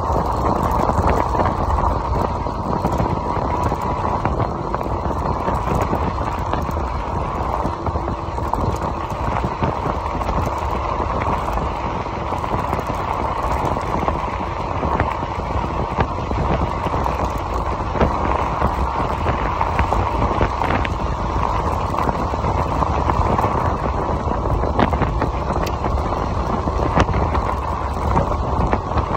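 Steady rumble of a Voltbike Yukon 750 fat-tyre e-bike riding along a gravel road: tyres rolling over loose gravel, mixed with wind on the microphone.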